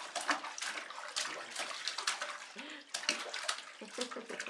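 A baby slapping bath water with its hands in a plastic infant bath tub: a quick, irregular run of splashes.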